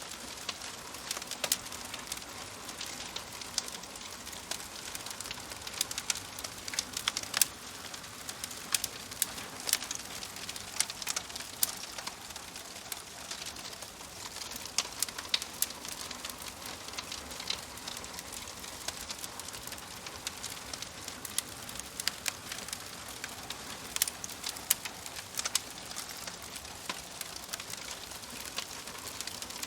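Wood fire crackling in a wood-burning stove: a steady hiss of burning with frequent irregular sharp pops and snaps.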